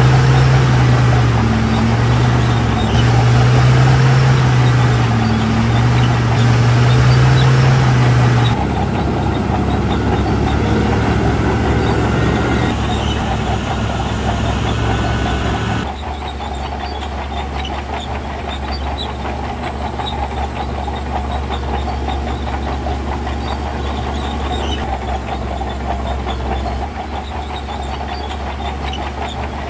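Heavy diesel engines of earthmoving machinery running. For the first several seconds the engine note rises and falls as it works under load; then the sound changes abruptly twice, settling into steadier, lower engine running.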